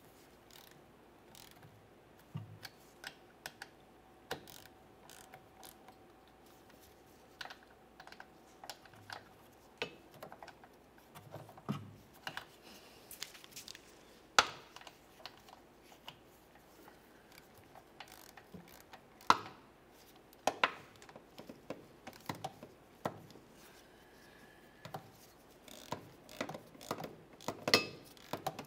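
Socket ratchet and torque wrench clicking in short irregular runs as the transfer case actuator motor's mounting bolts are tightened and torqued to 22 Newton meters, with a few louder single clicks among them.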